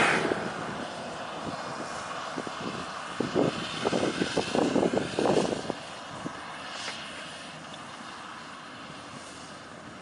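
Maxxi Bimo rice combine harvester running steadily as it cuts rice, with a stretch of irregular louder rattling noise in the middle.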